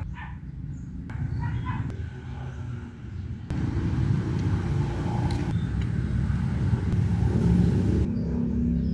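Motorcycle engine running with a steady low rumble, becoming louder about three and a half seconds in.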